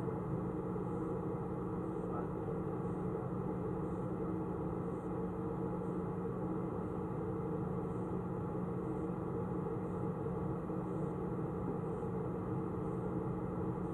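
A steady hum made of several constant tones over a low noisy bed, with a faint tick about once a second, muffled.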